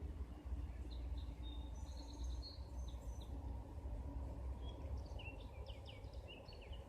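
Songbirds chirping in two bursts of quick high notes, one about a second in and one near the end, over a steady low outdoor rumble.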